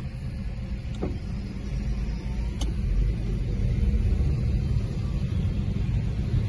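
Low, steady rumble of a car driving slowly in traffic, heard from inside the cabin, with two faint clicks about one and two and a half seconds in.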